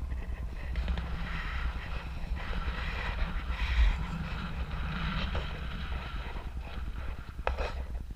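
Car driving along slowly, heard through a roof-mounted camera's microphone: a steady low wind rumble on the microphone with a hiss of tyre and road noise over it.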